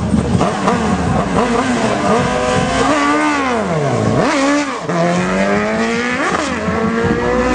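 Performance vehicle engine revving hard, its pitch climbing and falling repeatedly. There is a deep drop about four seconds in, then a steady climb and a quick rev blip about six seconds in.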